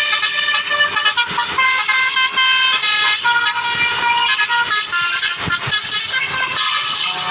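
Basuri telolet bus horn with roof-mounted trumpets playing a quick melody, one held tone after another in changing notes.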